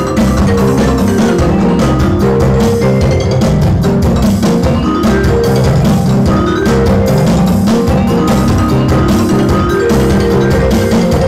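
Music played loud through two pairs of karaoke speakers, BFaudio Pro CSA 2000W and UK21, driven by a BFaudio Pro VA4850i four-channel power amplifier as a sound test. A melody runs over a heavy bass line and a steady beat, without breaks.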